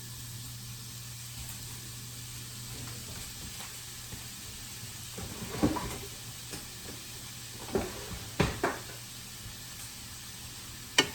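Shaggy mane mushroom halves sizzling steadily in hot melted butter in a frying pan, with a few sharp clacks of a utensil or mushroom pieces against the pan from about halfway in.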